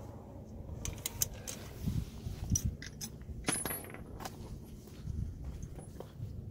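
Scattered metallic clicks and clinks of hand tools on a truck wheel as the lug nuts are tightened with a torque multiplier, one sharper clink ringing briefly about three and a half seconds in.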